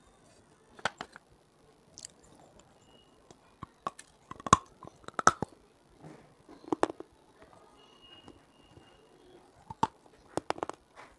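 Biting and chewing on hard clay pieces: sharp, brittle cracks at irregular intervals, the loudest about halfway through and a quick cluster near the end, with quieter grinding chews between.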